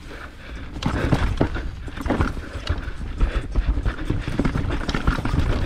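Mountain bike ridden over rough singletrack: irregular knocks and rattles as it hits rocks and roots, over a steady low rumble of tyres and wind.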